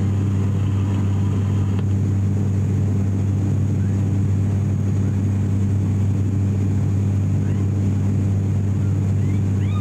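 Cabin noise of an ATR 42-600 turboprop in flight, heard at a window seat beside the propeller: the PW127 engine and six-blade propeller make a loud, steady drone with a strong deep hum and its overtone an octave higher.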